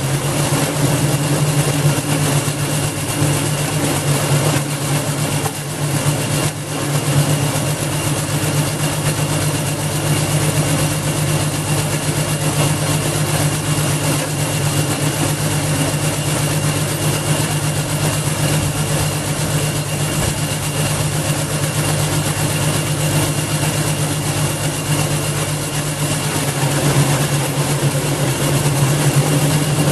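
Garden wood chipper's 5.5 HP Briggs and Stratton single-cylinder engine running steadily at constant speed, with a steady high whine above the engine note.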